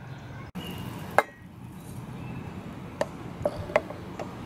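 Light metallic clinks of a Stanley stainless-steel camp cup knocking against the saucepan it is set into as a double boiler. There are about four clinks, the clearest about a second in, over a steady low hum.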